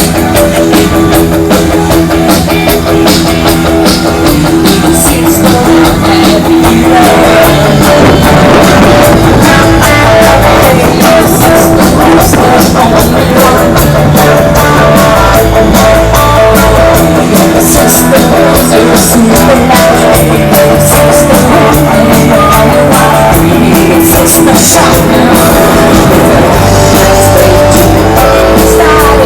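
Loud live rock music from a band: electric guitar over a drum kit.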